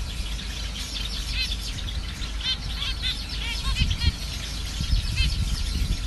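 Several caged zebra finches calling: short, repeated calls from a number of birds, overlapping and coming in irregular quick runs.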